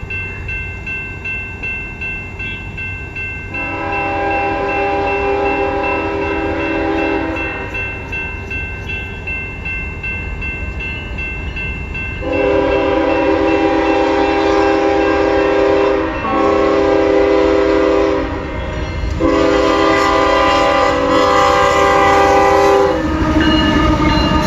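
Diesel freight locomotive's air horn sounding four chords: two long, a shorter one and a final long one. This is the grade-crossing signal, sounded over a steady low rumble from the train. A thin high ringing pulses under the first blasts, and the rumble grows louder near the end as the locomotives draw close.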